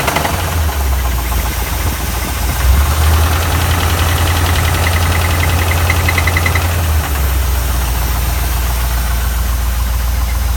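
1979 Ford Mustang's 5.0-litre (302) V8 running at idle with an engine knock, a fast rhythmic ticking over a steady low rumble. The owner plans to have it seen to in a restoration.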